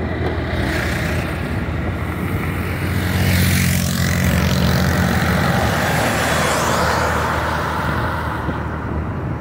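Vehicle engine running steadily while driving, with road and wind noise. A motorcycle passes close alongside, and the sound grows louder from about three seconds in, easing off near the end.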